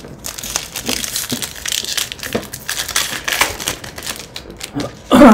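Foil wrapper of a baseball card pack crinkling and crackling as it is handled and torn open, a dense run of crisp crackles.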